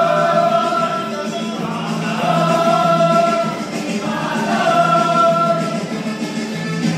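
Men singing karaoke-style into handheld microphones, loud and in long held notes, over a backing track played through a portable speaker.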